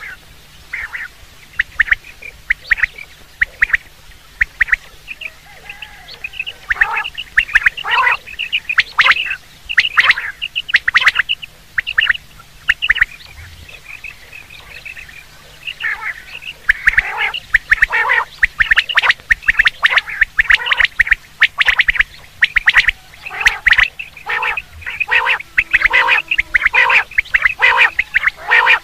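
Common quail calling over and over in short, sharp notes. The calls are sparse for the first few seconds, then come thick and fast in quick runs.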